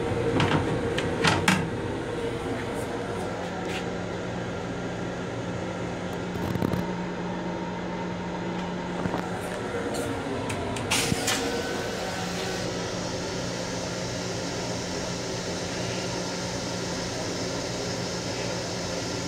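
Steady mechanical hum of an M7 commuter railcar's restroom, with a few sharp clacks of the plastic toilet seat being handled in the first second or two and a few short knocks later.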